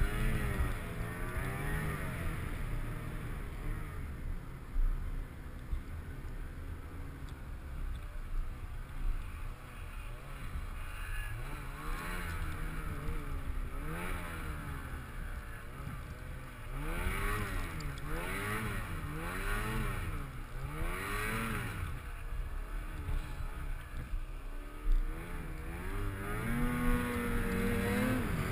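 Snowmobile engine revving up and down over and over while being ridden, its pitch rising and falling every second or so. Near the end it climbs to a higher, steadier pitch.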